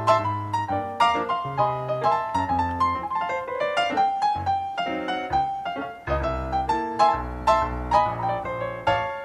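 Background piano music: a run of quick notes over low bass notes.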